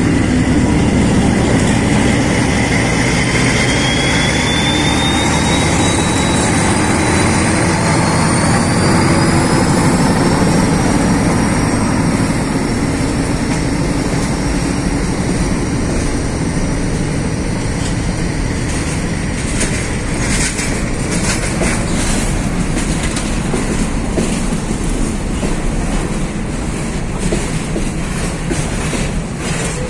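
Freight train rolling past at close range: a steady rumble of wagons, with a thin whine that rises in pitch over the first ten seconds or so. From about twenty seconds in, the clickety-clack of wheels over the rail joints comes in.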